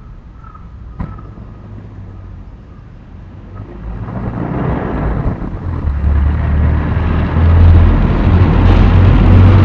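A few faint bird chirps and a single click, then from about four seconds in a low motor-vehicle rumble builds up and stays loud, as if a car or truck is running close by.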